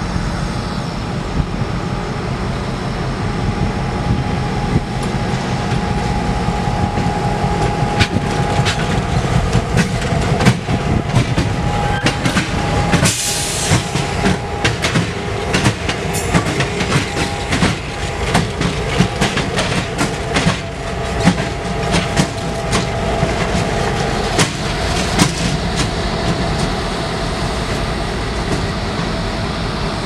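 A pair of EMD diesel locomotives, a GP38-2 and a GP40-2, roll slowly past close by with their engines rumbling steadily and their wheels clicking over the rail joints. A high whine comes and goes, and a short hiss sounds about halfway through.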